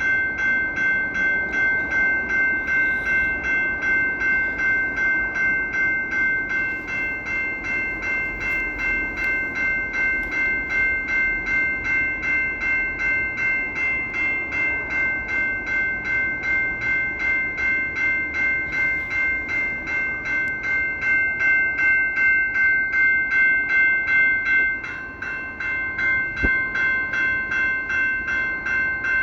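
Multi-chime locomotive air horn sounding one long, unbroken chord, its loudness pulsing evenly a little over twice a second. Near the end the chord briefly dips and a lower note joins in.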